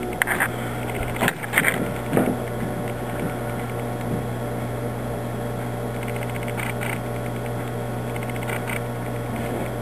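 A steady low hum, with a few brief knocks or scrapes in the first couple of seconds.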